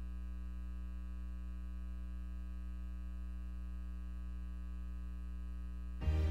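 Steady electrical hum with many evenly spaced overtones, low and unchanging, in the gap between pieces of music; music starts again near the end.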